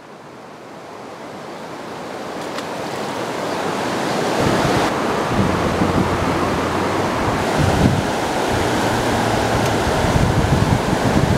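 Rushing water of river rapids, growing steadily louder over the first four seconds, with wind buffeting the microphone in uneven low gusts from about four seconds in.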